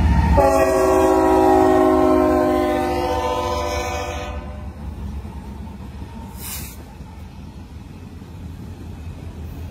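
Freight locomotive's multi-chime air horn sounding one long blast of about four seconds, then the rumble of locomotives and cars rolling past.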